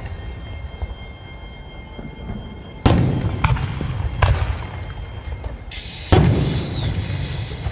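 Aerial fireworks shells bursting. There are loud bangs about three seconds in, just after four seconds and about six seconds in, plus a weaker one in between, each trailing off into a low rumble.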